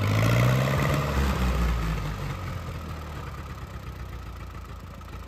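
1942 Silver King Model 41 tractor engine running, its pitch rising briefly near the start, then dropping away and growing much quieter after about two seconds.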